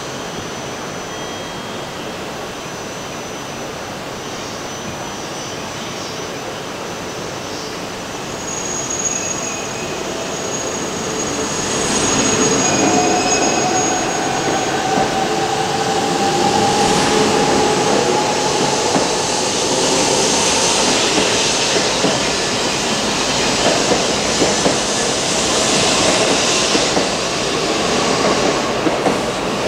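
Shinkansen bullet train moving along the platform. Its sound builds from about ten seconds in, and a motor whine slowly rises in pitch as the train gathers speed, over a steady rush of wheel and air noise.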